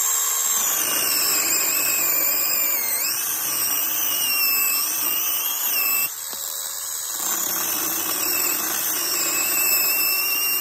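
Battery-powered 6-inch mini chainsaw running steadily and cutting through a small log. Its motor whine dips in pitch about three seconds in, and it is briefly quieter for about a second around six seconds in before cutting on.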